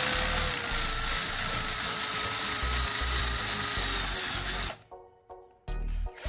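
Electric drill running with a steady whine as its twist bit bores out the hole in a wooden dowel. It stops abruptly about five seconds in.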